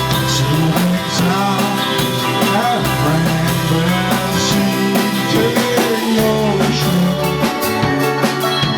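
Indie pop band playing live: a drum kit keeping the beat under held bass notes that change every second or so.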